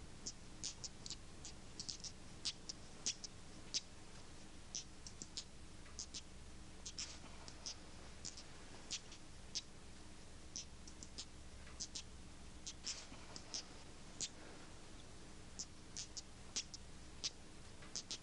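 Two steel balls rolled together in one hand, clicking against each other in short irregular ticks, a few a second, over a faint low hum: a nervous habit of a man coming apart under strain.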